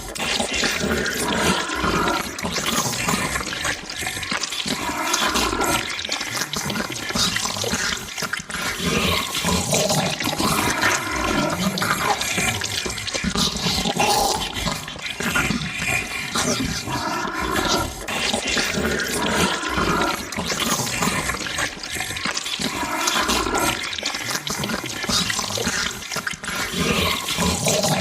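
Monster-eating sound effect: continuous wet, sloppy chewing and slurping, swelling and easing every few seconds.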